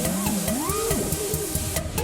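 Electronic music with a quick, steady beat and swooping, gliding tones.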